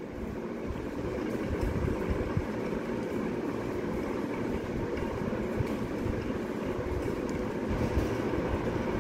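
Mutton pieces frying in oil in a non-stick kadai, a steady sizzle, with a spatula stirring and scraping through them and a few light knocks.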